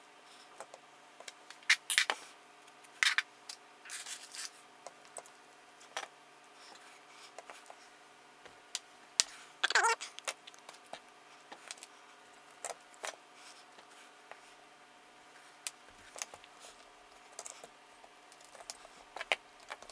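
Small drone-frame parts being handled and fitted together: scattered sharp clicks and taps of standoffs and 3D-printed plastic camera-mount pieces, with a short scrape about ten seconds in, over a faint steady hum.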